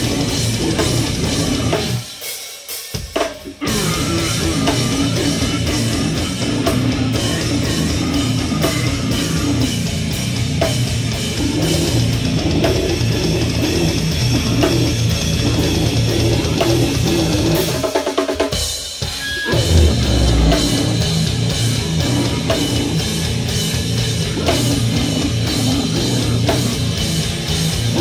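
Slamming brutal death metal played live by a full band: down-tuned distorted guitars, bass and pounding drums, with guttural vocals. The band stops dead for about a second and a half twice, about two seconds in and again near eighteen seconds, crashing back in the second time with a heavy low hit.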